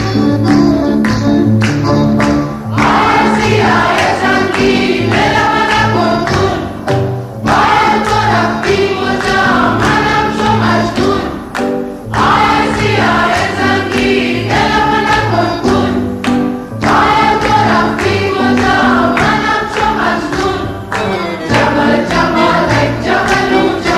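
Slowed-down, reverb-heavy edit of a Persian folk chant sung by a chorus of voices over a steady drum beat; the voices come in about three seconds in.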